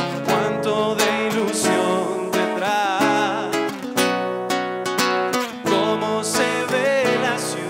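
Solo acoustic guitar strummed in a trova song, with a man's voice singing a wavering melody over the chords.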